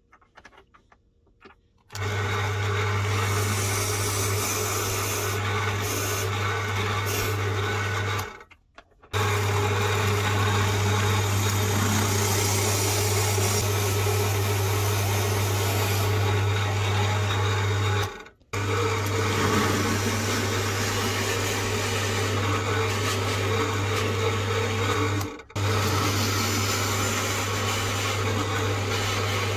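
Bench drill press running, its bit boring into plywood: a steady motor hum under the cutting noise. It starts about two seconds in after a few faint clicks, and drops out briefly three times.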